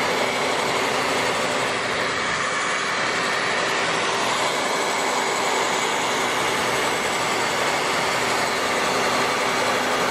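Hand-held hair dryer running steadily, a constant rush of blown air with a faint motor hum.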